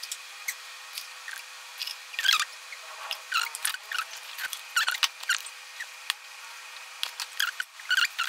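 Hands scooping cocopeat and vermicompost potting mix in a plastic tub, the crumbly mix and fingers scraping against the plastic in short, irregular scratchy rustles.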